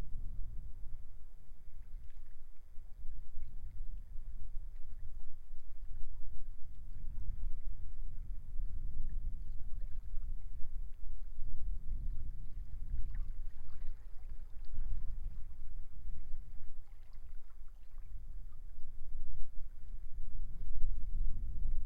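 Strong wind rumbling and buffeting on the microphone, rising and falling in gusts, over the wash of sea waves on the shore.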